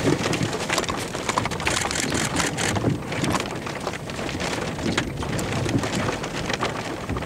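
Rain pelting a vehicle's windshield and roof, heard from inside the cabin: a steady hiss with many sharp drop hits.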